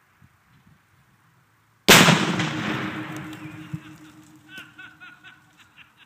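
Tannerite exploding target detonating: a single loud blast about two seconds in, its rumble and echo dying away over the next couple of seconds.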